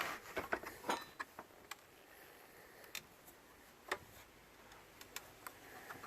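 Light clicks and knocks of a pry bar and pallet wood being handled: a quick cluster of small knocks at the start, then a few single sharp clicks.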